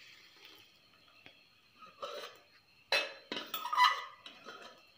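A spoon scraping and knocking against the inside of a stainless-steel mixer jar to get out the last of the rice batter, a few scrapes and clinks about two to four seconds in, the loudest near the end; a faint pour of batter at the start.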